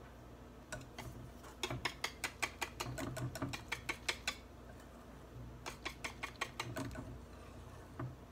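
Wire whisk beating batter in a glass bowl, its wires clicking rapidly against the glass, about six strokes a second. There are two runs of strokes with a short pause between them.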